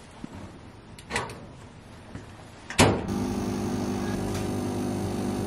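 A few faint knocks, then about three seconds in a sharp click as an automatic coffee machine starts dispensing, its pump running with a steady hum while coffee streams into a paper cup.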